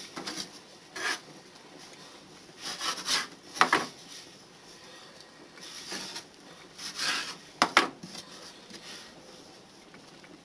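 A knife scraping and cutting through floured pie dough on a cutting board, in several short strokes, with two sharp clicks standing out as the loudest sounds, near the middle and about three-quarters of the way in.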